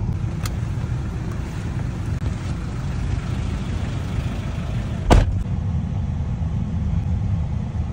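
Steady low rumble of a car driving on the road, with one sharp thump about five seconds in.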